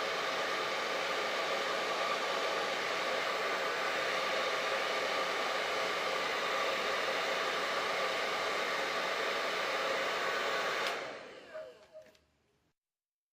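Electric hair dryer running steadily: a loud rush of air with a steady motor whine. About eleven seconds in it is switched off, and the whine falls in pitch as the motor winds down to silence.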